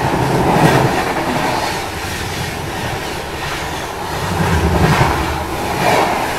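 Rumble and wheel clatter of two passenger trains running past each other on adjacent tracks, heard close through an open coach door. It swells twice, about half a second in and again around five seconds in.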